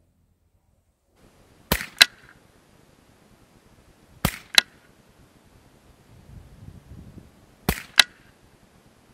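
Savage 64F semi-automatic .22 LR rifle firing three shots, a few seconds apart. Each shot is heard as two sharp cracks about a third of a second apart.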